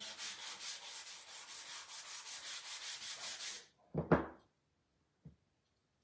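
A sanding block rubbed quickly back and forth over a small piece of wood, in rapid even strokes that stop just before four seconds. Then comes a single sharp knock, the loudest sound, as the block is set down on the table, and a faint tap about a second later.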